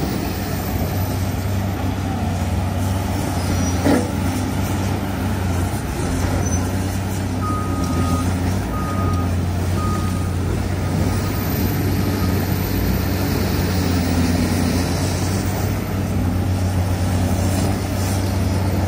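Heavy diesel earthmoving machines, a Cat excavator and a wheel loader, running steadily. There is a single knock about four seconds in, and a backup alarm beeps a few times around the middle.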